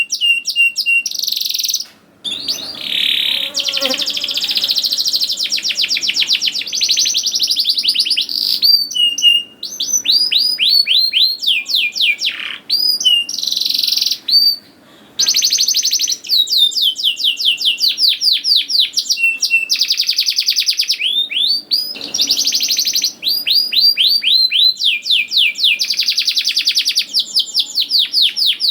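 Canary singing loudly and without letup: fast runs of repeated falling whistled notes and rolling trills, broken by a few short pauses.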